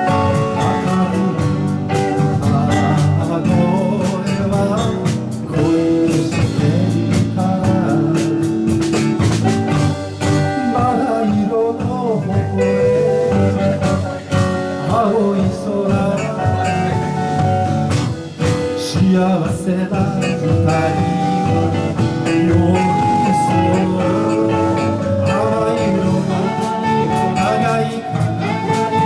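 Live band music: electric and acoustic guitars, electric bass and a drum kit playing a gentle pop ballad, with a male lead vocal singing into a microphone.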